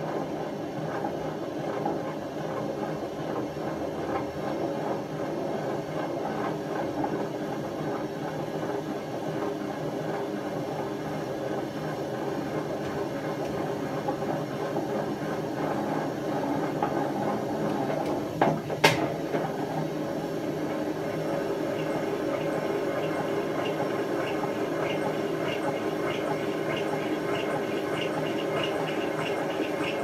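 Hotpoint FEW12 washing machine running with its drum turning on badly worn-out bearings: a steady, loud, rough rumbling. One sharp click sounds a little past halfway.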